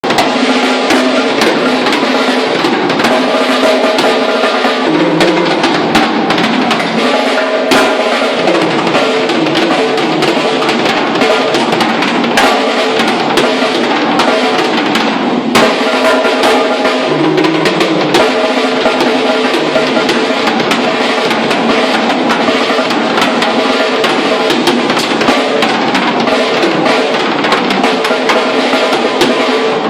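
A drum kit played without a break during a sound check, with snare and bass drum hits.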